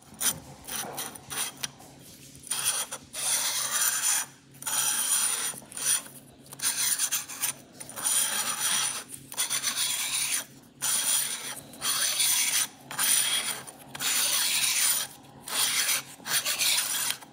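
Gaffer tape being pulled off the roll and torn into small tabs: a series of raspy peeling bursts, each one to two seconds long, with short pauses between them.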